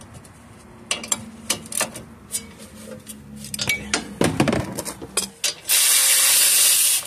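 Scattered metal clicks and clatter as a socket and ratchet are worked onto the 18 mm upper ball-joint nut of the truck's front suspension. About six seconds in, a cordless power ratchet runs loud and steady for about a second and a half, spinning the nut off.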